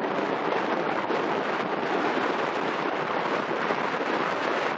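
Steady rushing noise of wind on the microphone mixed with the water wash of a passing container ship.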